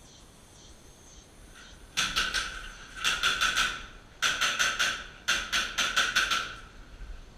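Airsoft electric gun firing four quick bursts of rapid shots a couple of seconds in, each burst a string of sharp clacks over a steady whine.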